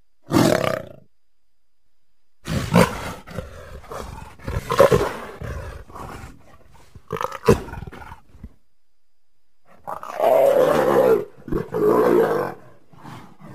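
Leopard calling: a brief call right at the start, a run of uneven calls from about two and a half seconds in to eight, then two loud calls, each over a second long, near the end.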